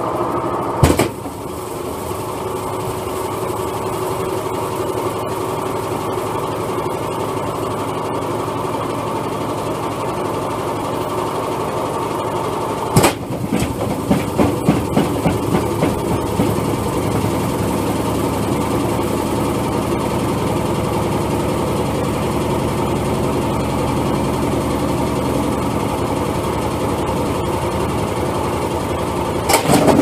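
Hotpoint Aquarius WMA54 washing machine running a spin with a brick in the drum: a steady motor whine and drum rumble, with a sharp bang about a second in and another about halfway through, followed by a couple of seconds of uneven knocking. Near the end comes loud, rapid banging and clattering as the unbalanced machine shakes itself apart and its top panel flies off.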